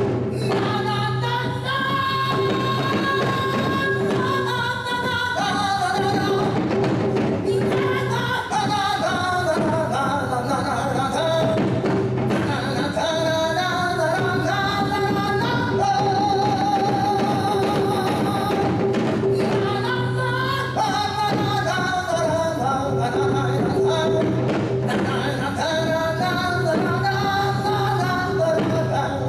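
Live performance of a Korean song: a male voice singing with vibrato over instrumental accompaniment that holds a steady low drone.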